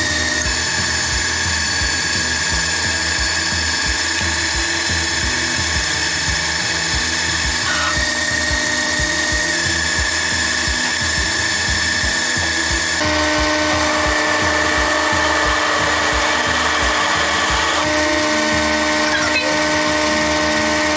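Metal lathe running, turning a large round metal billet held in its chuck. Its steady whine of several held tones shifts a few times, with a regular low pulse about twice a second.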